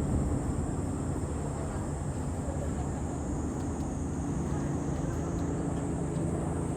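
Steady low outdoor rumble with a faint hum and a few faint ticks.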